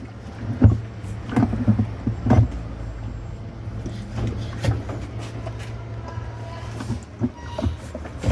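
Irregular knocks and clunks as a top-loading washing machine's wash basket is worked down into position on its drive hub, over a steady low hum.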